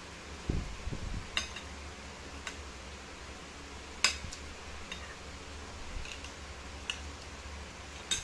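Metal spoon and fork clinking and scraping against a ceramic plate while scooping rice and sardine flesh: half a dozen short, sharp clinks, the loudest about four seconds in, with a few low thumps near the start.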